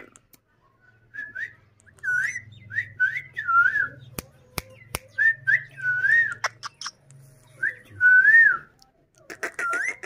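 Indian ringneck parakeet whistling a run of short, wavering notes that swoop up and down, in several phrases. Three sharp clicks come a little before the middle.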